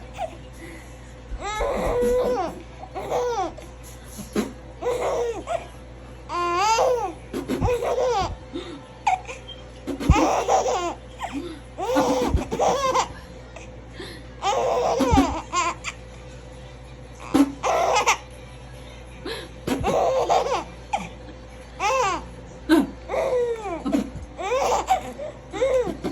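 A baby laughing in repeated bursts of giggles and belly laughs, about every one to two seconds, set off by fart noises.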